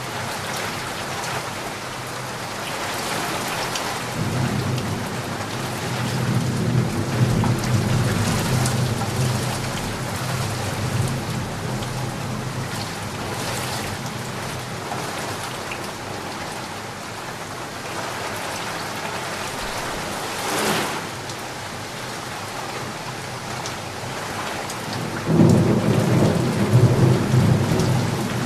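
Steady rain falling, with low rumbles of thunder rolling in about four seconds in and again near the end, and one sharp crack about twenty seconds in.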